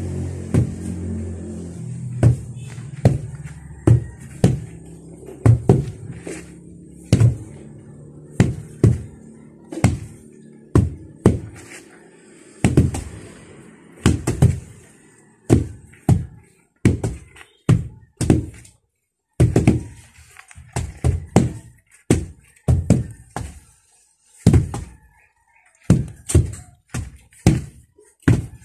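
Two wooden hand tampers thudding onto loose soil in an uneven rhythm of one to two strikes a second, compacting the earth floor.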